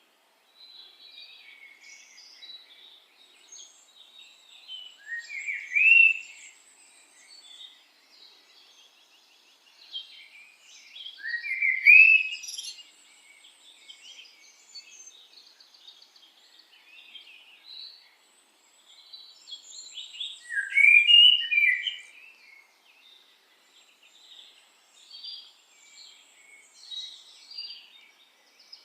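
Birds chirping and singing continuously, several calls overlapping, with three louder rising phrases about five, eleven and twenty-one seconds in.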